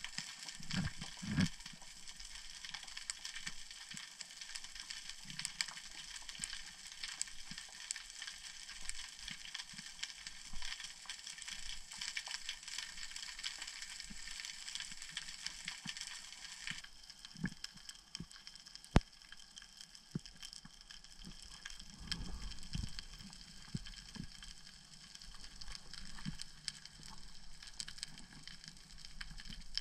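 Underwater ambience on a rocky seabed: a steady crackling of countless tiny clicks, with a few low thumps near the start and again later, and one sharper click a little past the middle.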